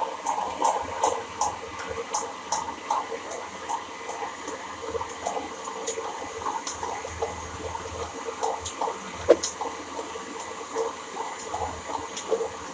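Thick homemade mayonnaise being stirred and scooped with a utensil in its container: a run of irregular soft, wet squelches and light clicks, two or three a second, with one sharper knock about nine seconds in.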